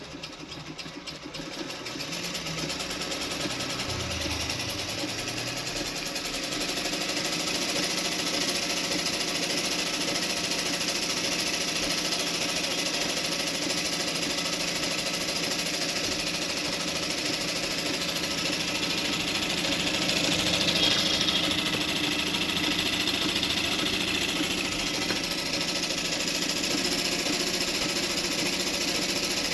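Jaxi JX-38 sewing machine running with a fast, even rattle, picking up speed over the first several seconds and then running steadily at high speed.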